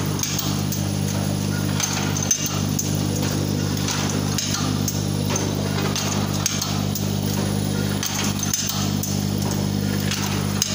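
Box overwrapping machine running, wrapping small boxes in film: a steady low mechanical hum with sharp clacks from its mechanism every second or so.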